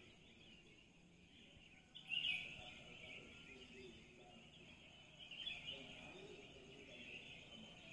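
Faint bird chirping in the background, swelling about two seconds in and again around five to six seconds.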